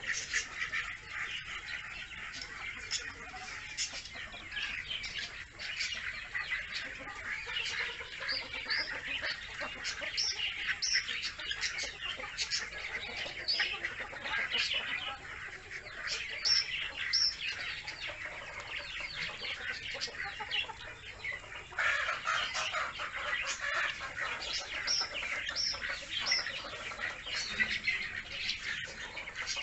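Muscovy ducklings peeping as a flock: a dense, unbroken run of short high peeps, with clearer, higher single peeps standing out now and then.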